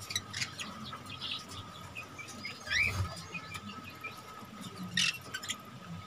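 Small caged parrots chirping sporadically with short, rising calls, along with light clicks and scuffling from birds moving about the wire cages, over a faint steady hum.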